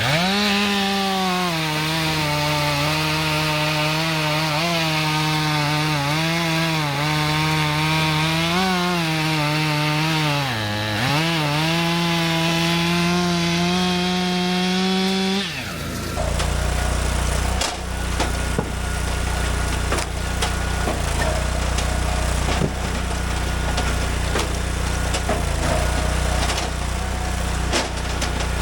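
STIHL MS462 two-stroke chainsaw at full throttle bucking a log, its pitch sagging under load and dropping sharply once before recovering. About 15 seconds in the saw lets off, leaving a low steady engine idle with occasional sharp knocks.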